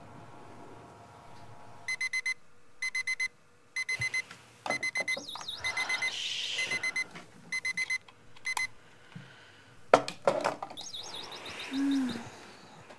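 Electronic alarm clock beeping, a high beep in quick groups of four that repeat a little under once a second, with bedding rustling; the beeping stops, and a few sharp knocks follow.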